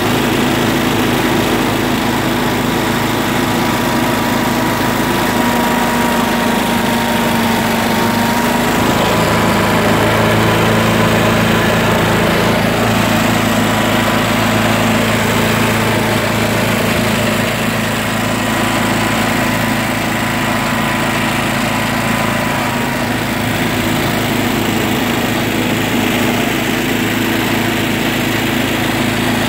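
John Deere lawn tractor's small engine running steadily under way, its pitch changing slightly about nine seconds in.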